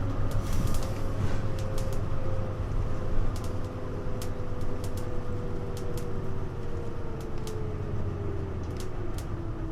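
Hino U-HU2MLAA city bus heard from inside the cabin while under way: a low drivetrain rumble under a whine that falls slowly in pitch and drops faster near the end as the bus slows. Scattered sharp clicks and rattles from the body run throughout.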